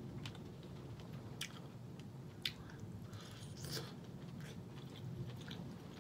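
Close-up mouth sounds of chewing a mouthful of sautéed cabbage and smoked turkey, with several short wet clicks and smacks. The sharpest comes about halfway through.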